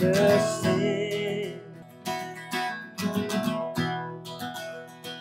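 Two acoustic guitars, one a steel-string, strumming a slow, mellow folk song. A sung note wavers and is held over the first couple of seconds, then the guitars carry on alone in spaced strums.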